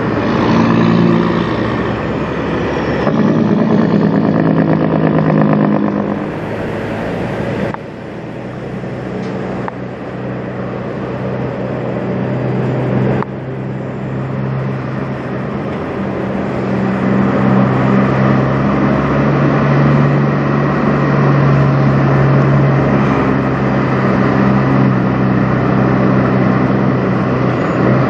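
Peterbilt semi truck's diesel engine running as it pulls a heavy oversize load on a lowboy trailer, a steady low engine note that grows louder over the second half as the truck comes close. A pickup truck also passes about halfway through.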